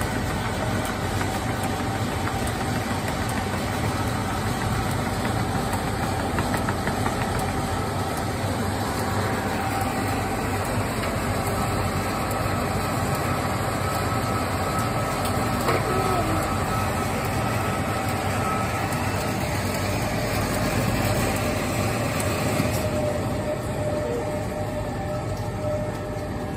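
Slurpee frozen-drink machine running with a steady mechanical hum.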